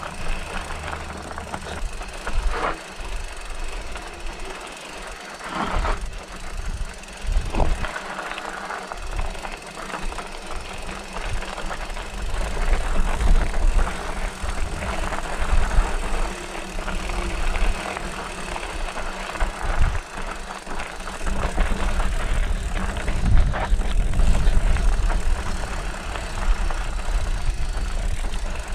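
Hardtail mountain bike ridden over rough single track: tyres on dirt, chain and frame rattling, with a few sharp knocks in the first third. A heavier low rumble of wind on the chest-mounted camera's microphone comes in about two-thirds of the way through.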